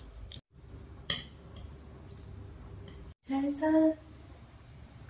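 A light clink of tableware about a second in. About three seconds in comes a short two-part hummed 'mm-mm' from a person's voice, the loudest sound here.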